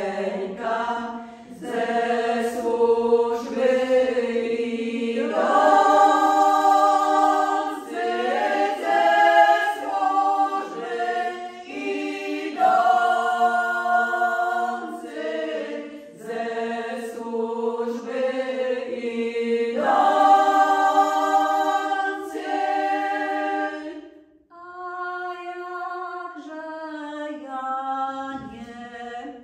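A women's folk vocal ensemble sings a traditional Polish folk song a cappella in several voices, in long held phrases with short breaths between them. After a brief pause near the end, fewer voices carry on.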